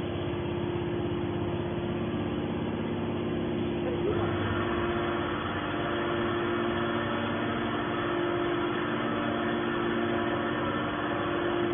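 Hydraulic scrap-metal baler running while it presses stainless steel, a steady machine hum from its pump and motor. About four seconds in the sound grows fuller and a little louder.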